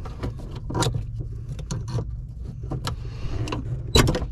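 Light metallic clicks and scrapes of a screwdriver working a receiver-hitch pin clip off the clutch master cylinder pushrod at the clutch pedal, with a louder sharp click about four seconds in. A steady low hum runs underneath.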